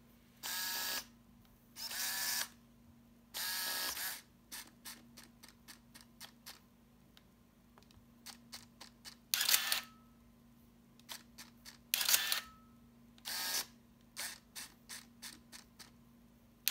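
Minolta 7000 AF's built-in motor whirring in short bursts of about half a second, seven times. Between the bursts come runs of light mechanical clicks. A faint short tone follows some of the later bursts.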